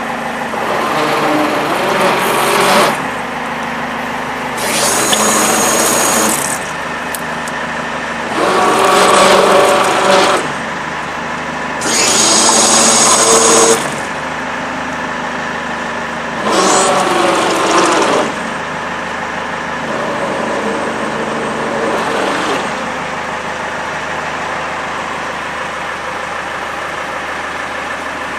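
An engine idling steadily while a Braden bumper winch is run in six separate bursts of about two seconds each. Each run brings a louder rush of sound over the idle, and the last run is weaker than the others.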